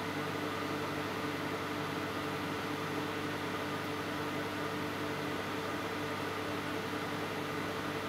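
Microwave oven running with a steady, unchanging hum.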